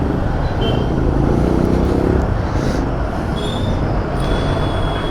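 Road traffic noise with a running motorcycle engine and a heavy rumble of wind on the microphone. There are a few brief high tones, the last one held near the end.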